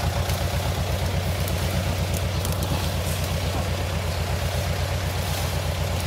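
A vehicle engine idling steadily with an even, fast low throb.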